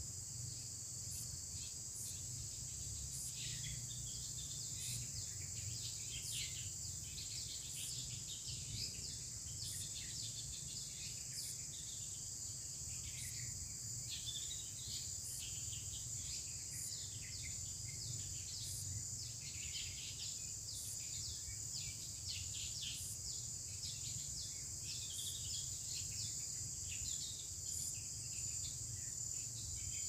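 Insects drone steadily at a high pitch, with many short, high chirps scattered throughout and a faint regular tick about every second and a half.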